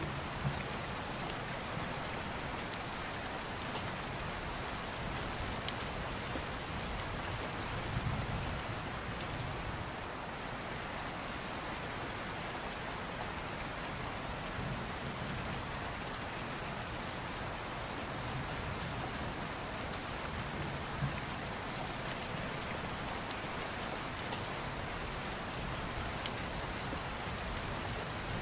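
Steady rain falling, an even hiss, with a few faint ticks now and then.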